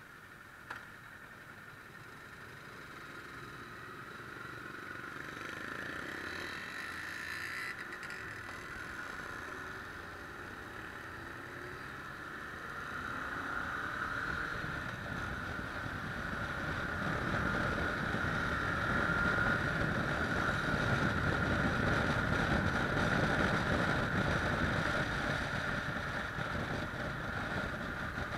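Kawasaki ER-6 649 cc parallel-twin motorcycle engine pulling away and picking up speed, with the revs rising. Wind noise on the camera grows louder as the bike gets faster.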